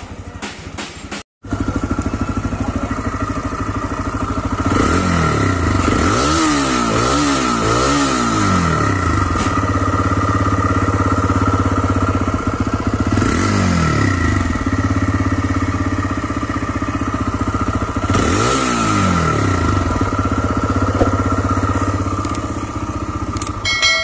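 TVS Raider 125's single-cylinder engine idling, with a quick run of throttle blips a few seconds in and two more single revs later, each rising and falling back to idle.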